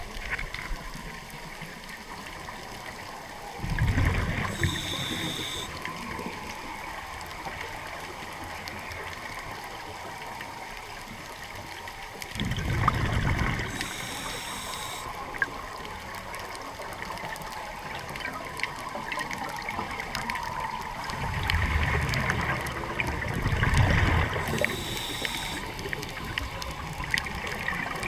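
Scuba divers' regulator exhalations underwater: a loud rush of bubbling about every nine seconds, three times, each ending in a brief high hiss. Between breaths, a faint steady crackling hiss.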